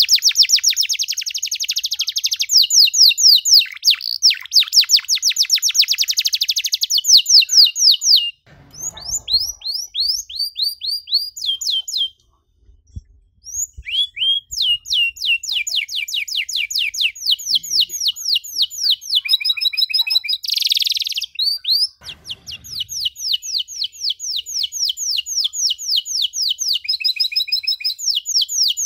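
Domestic canary singing a long song of fast trills, each a rapid run of high repeated notes, the rolls changing pitch from one phrase to the next. The song breaks off briefly near the middle and then resumes.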